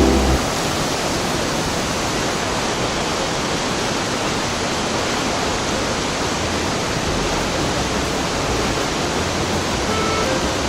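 Steady, even rush of water pouring over Fukiware Falls. Faint music notes come in near the end.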